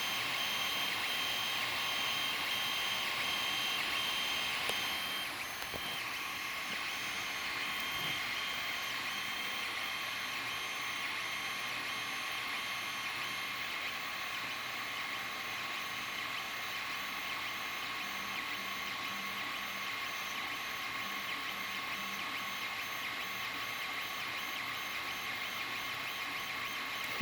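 Creality Ender-3 3D printer printing: its stepper motors whine in several high, steady tones, some pulsing on and off as the print head moves, over a steady whirring. About five seconds in one tone stops and the sound gets slightly quieter.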